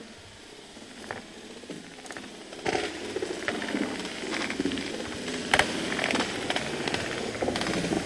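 A cut tree cracking and its branches snapping as it tips over and falls through neighbouring trees: faint at first, then a dense run of cracks from about two and a half seconds in, with one sharp crack about halfway through.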